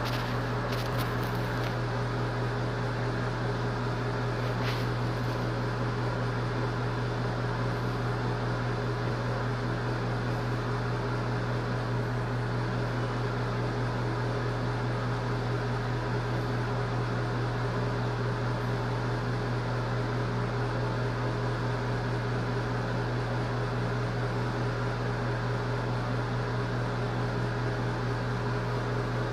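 Steady mechanical hum with an even hiss, like a running fan or ventilation unit, with a few faint clicks in the first couple of seconds and one more about five seconds in.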